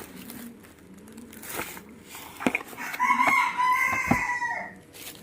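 A rooster crowing once, about three seconds in: one long, even call of under two seconds that drops away at the end. A few light clicks come before it.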